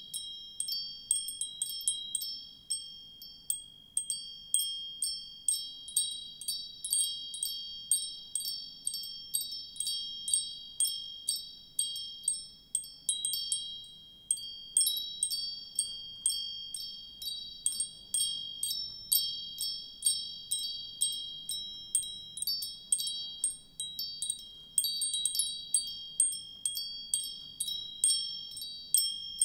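Wind chimes ringing, struck irregularly two or three times a second, a handful of fixed high notes overlapping and ringing on.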